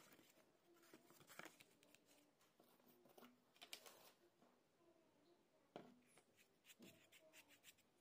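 Very faint rustling and scattered clicks of a cardboard sheet being handled and laid down on a wooden table.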